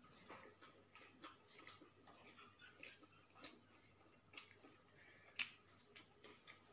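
Near silence with faint, irregular clicks and smacks of mouths chewing pizza, one sharper click about five and a half seconds in.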